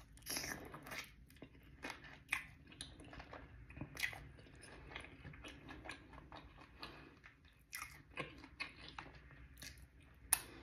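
Close-up chewing and biting of crispy, sauce-coated fried chicken wings: soft crunches and wet mouth clicks at irregular intervals, with a sharper smack near the end as she sucks her fingers.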